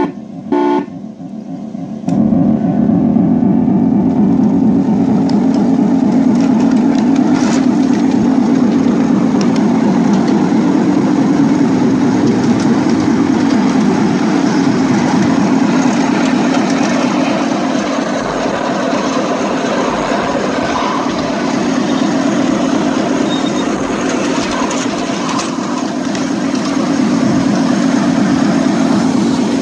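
Two short horn toots from a ride-on miniature electric locomotive, then, from about two seconds in, the steady loud running noise of the locomotive moving along the track.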